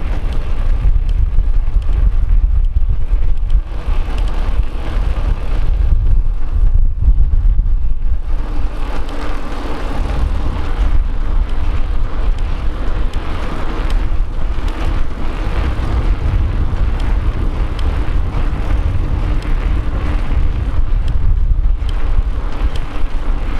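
Wind buffeting the microphone of a camera carried on a track run: a loud, continuous low rumble.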